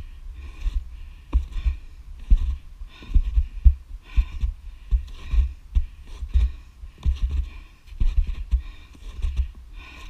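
Snowshoe footsteps on snow at a steady walking pace, each step a dull thump with a crunch.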